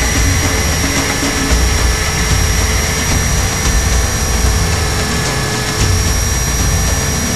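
Electric RC helicopter with T-REX 500 mechanics, heard from the onboard camera in flight. A steady high motor whine sits over a heavy, uneven low rumble of rotor noise.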